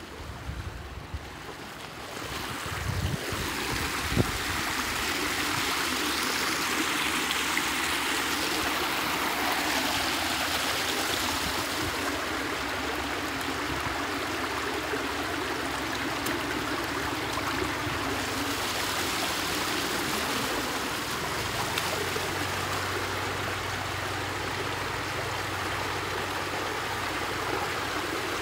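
Muddy water rushing steadily through a concrete culvert pipe and pouring over rocks. The rush sets in about two to three seconds in, after a quieter start with a few low knocks.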